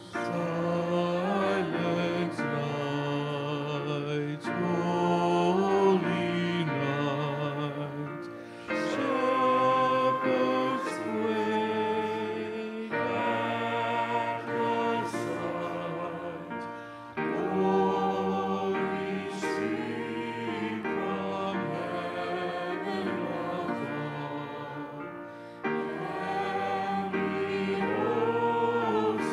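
Hymn sung by many voices with instrumental accompaniment, as a church invitation hymn during which people come forward. It goes in phrases with short breaks between them.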